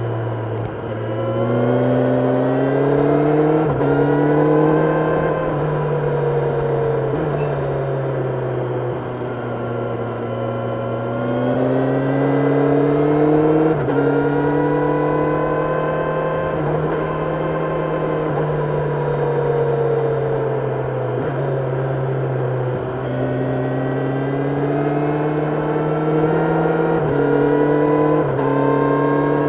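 Kawasaki Ninja 1000SX's inline-four engine heard on board while riding: the engine note climbs and falls over and over, with sudden steps in pitch at gear changes.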